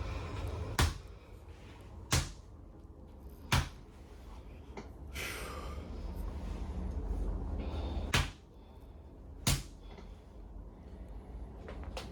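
Sharp knocks of a chiropractic adjusting hammer striking a woman's upper back: three blows about a second and a half apart, a pause, then two more.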